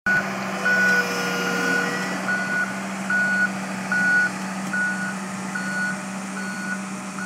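Komatsu 6-tonne rubber-tracked dumper running on hi-rail wheels: its warning alarm beeps at one even pitch a little more than once a second over the steady drone of its diesel engine.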